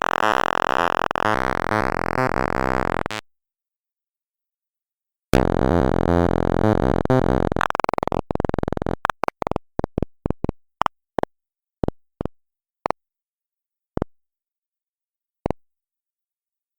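Sound of Sorting sonification: a rapid stream of short synthesized beeps whose pitches jump around as the sorting algorithm compares array values. It stops about 3 s in and resumes about 5 s in. It then slows to single beeps spaced further and further apart, the last more than a second apart, as the playback speed is turned down.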